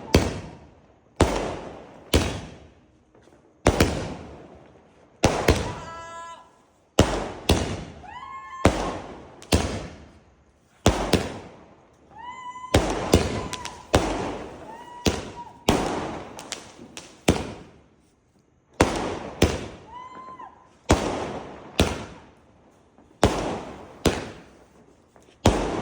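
Multi-shot aerial fireworks cake firing in a steady sequence, a sharp bang about every second, each fading away. A few shots are followed by a brief whistling tone.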